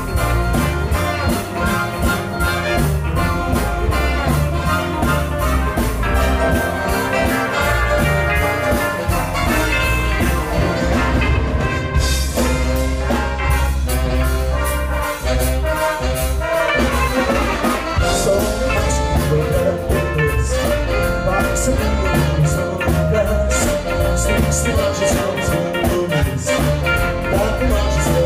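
A live big band playing a jazz-style instrumental passage: brass and saxophones over double bass, drums, guitar and piano, with no singing.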